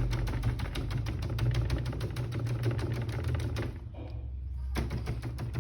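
Rapid, evenly spaced mechanical clicking, roughly eight to ten clicks a second, over a steady low hum; it breaks off briefly about four seconds in and then starts again.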